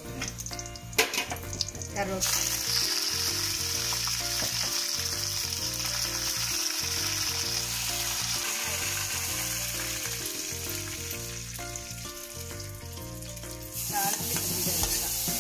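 Spices frying in hot oil in an iron kadai: a few sharp clicks at first, then a sudden loud sizzle about two seconds in as curry leaves go into the oil, holding steady for several seconds. Near the end the sizzle rises again as the hot tempering is poured over the cooked vegetables.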